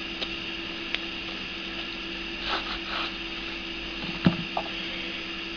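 Light handling noises of a folding knife and its sheath: a few small sharp clicks and a short rustle about two and a half seconds in, over a steady background hum.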